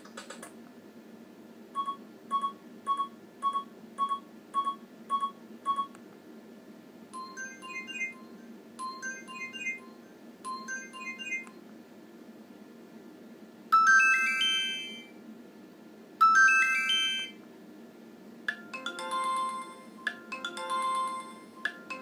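Alcatel 2000 feature phone's small speaker playing short previews of its built-in MIDI ringtones one after another. First comes a run of about seven identical quick beeps, then three short chirpy phrases, then two loud sweeping jingles, and near the end a repeated two-pitch phrase.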